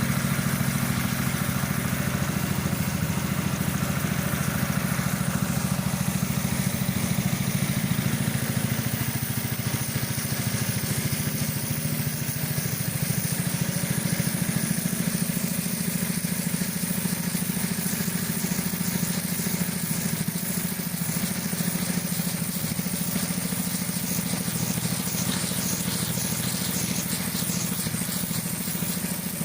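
Pressure washer running steadily: a low pump-motor hum under the hiss of the high-pressure water jet.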